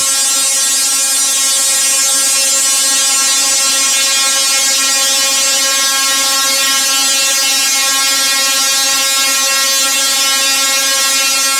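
A DRSSTC (dual-resonant solid-state Tesla coil) throwing long branching sparks at full power. It makes a loud, steady buzz at one unchanging pitch, set by the interrupter's firing rate, with a sizzling hiss of the arcs above it.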